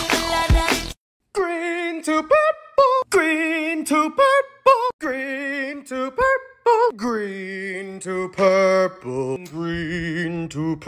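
Background music with a beat cuts off about a second in. After a short gap, a solo voice sings a melody unaccompanied, its pitch wavering with vibrato.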